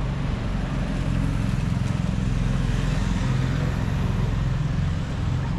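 Steady low rumble of outdoor city street noise.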